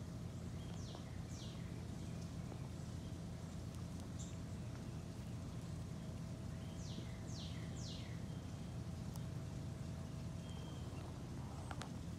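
Outdoor ambience: a steady low hum, with a few short, high, falling chirps, likely from a small bird, twice about a second in and three times about seven seconds in.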